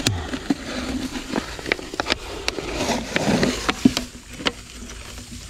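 Grass and wet vegetation rustling as a hand pushes through it, with many scattered sharp clicks and snaps of stems being handled.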